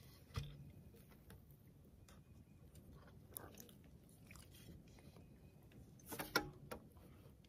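Faint handling noise: rustling and small clicks as the camera and camouflage clothing are moved about. A dull thump comes about half a second in, and a short cluster of louder clicks and rustles comes near the end.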